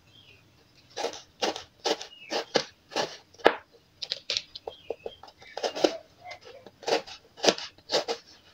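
Kitchen knife slicing garlic and bird's eye chilies on a plastic cutting board. The blade strikes the board in a series of irregular chops, about one to two a second, starting about a second in.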